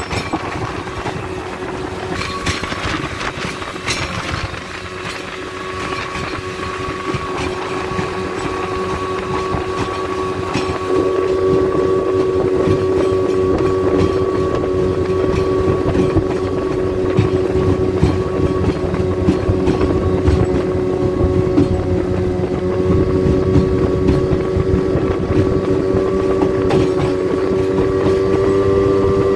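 Outboard motor of a small jon boat running steadily under way, with wind and water rushing past the hull. The engine's steady tone grows louder about eleven seconds in.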